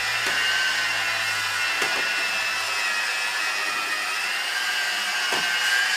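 Electric rotary polisher with a foam pad running steadily, buffing cutting compound into car paint: a high motor whine that sags slightly in pitch and rises again as the pad is worked across the panel.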